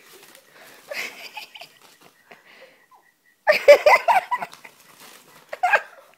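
People laughing in bursts. The loudest burst comes about three and a half seconds in, with a shorter one near the end.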